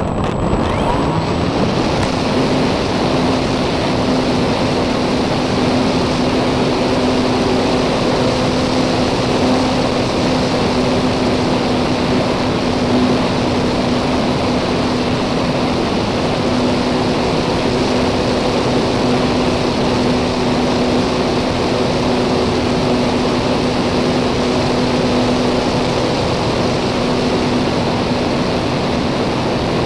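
Parkzone Radian glider's electric motor and propeller running under power, heard from a camera mounted on the plane, coming up to speed in the first couple of seconds and then holding a steady hum. Wind rushes over the microphone throughout.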